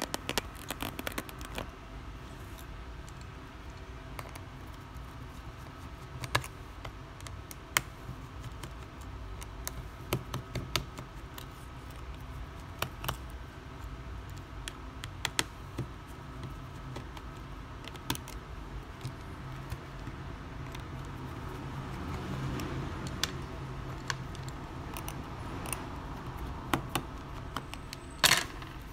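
Scattered light clicks and taps of a precision screwdriver and small metal parts against a phone's metal midframe as its screws are undone, over a steady low hum. A sharper clatter comes near the end.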